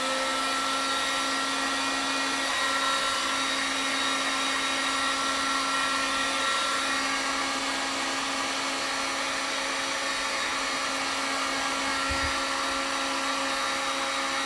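Drill Master handheld heat gun running steadily on its high setting: an even motor-and-fan whine over a rush of hot air.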